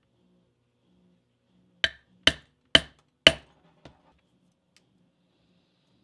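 A steel rivet setter held upright on a leather dog collar over a granite slab is struck four times, about half a second apart, setting a rivet through the strap; each strike is sharp and rings briefly, and a small knock follows.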